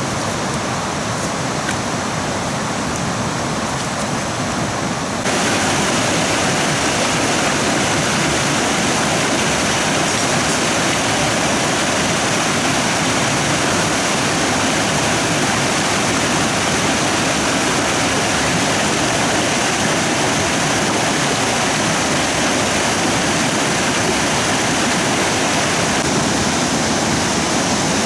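Steady rush of flowing stream water. About five seconds in, it jumps abruptly louder and brighter, then stays even.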